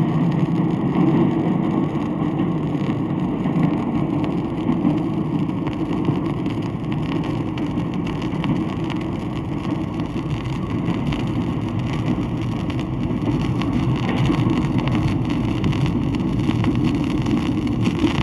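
Steady rumble of a semi-fast train running past, with faint clatter on top, played from an old 78 rpm sound-effects record with surface noise. The level sags a little around the middle and picks up again toward the end.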